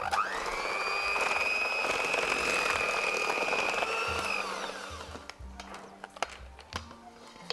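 Electric hand mixer running, its beaters mixing flour into creamed butter and sugar in a stainless steel bowl. The motor starts with a quick rising whine, runs steadily, then winds down and stops about five seconds in. A few light clicks and knocks follow.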